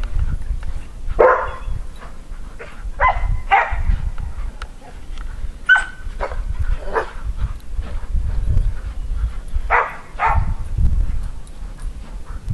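Dogs barking outdoors, about eight short barks, several in quick pairs. A steady low rumble of wind on the microphone runs underneath.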